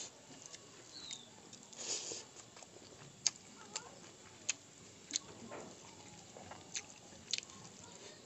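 A person eating rice and vegetables by hand: chewing with a series of sharp, irregular lip-smacking clicks, and a short soft squish of fingers mixing rice on the plate about two seconds in.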